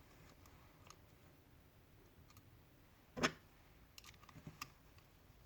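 Faint clicks and taps of the metal blades being fitted onto a Wahl Magic Clip hair clipper, with one sharper click about three seconds in and a few small ticks soon after.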